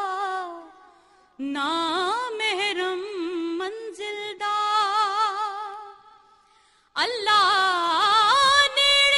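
A woman singing a Punjabi Sufi kalam unaccompanied, in long drawn-out notes with heavy vibrato and ornaments, in four phrases with short breaths between them; the last phrase, about seven seconds in, is louder.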